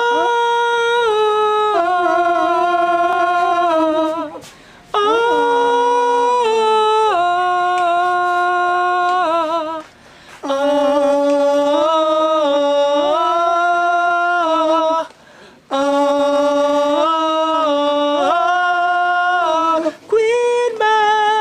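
A cappella male singing of a slow reggae melody, high and unaccompanied, with long held notes in phrases of about five seconds separated by short breaths.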